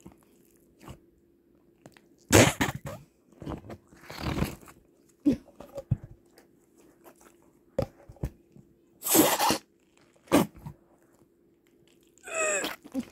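A series of fart noises: short spluttering bursts with pauses between them, the loudest about two seconds in and about nine seconds in. Near the end, one comes with a falling squeaky pitch.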